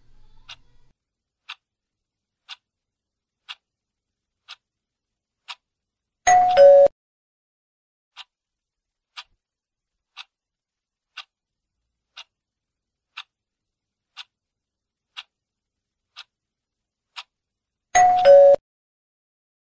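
Quiz countdown-timer sound effect: a soft clock tick about once a second, broken twice, about six seconds in and again near the end, by a louder two-note falling chime as the timer reaches zero and the answer is revealed.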